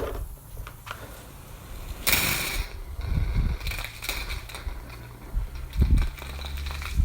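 Kärcher K2 electric pressure washer: a short burst of hissing spray about two seconds in, then low knocks and the pump motor's steady low hum.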